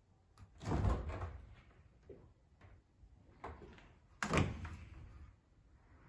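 Kitchen cupboard door being opened and shut: two loud knocks, about a second in and about four seconds in, with lighter knocks and clatters between.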